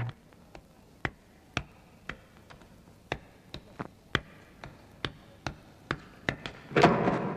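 Hard footsteps tapping on a floor, about two a second, then one loud heavy thump near the end.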